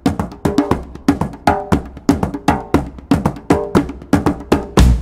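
Background music: a quick, steady beat of woodblock-like percussion with pitched notes, and a heavy bass line coming in louder near the end.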